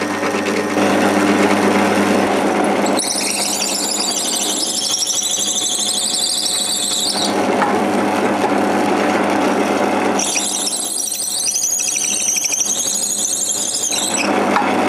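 Bench drill press running steadily while its bit drills a tang hole into a wooden knife-handle block, with a high-pitched squeal from the cutting bit twice, each lasting about four seconds, starting about three and about ten seconds in.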